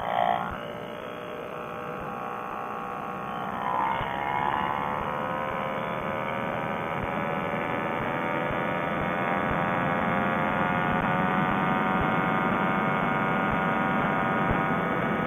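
Paramotor trike engine and propeller running in flight, its pitch climbing slowly from a few seconds in as the engine speeds up, with a brief louder burst right at the start. Heard narrow and boxy through a Bluetooth helmet headset microphone.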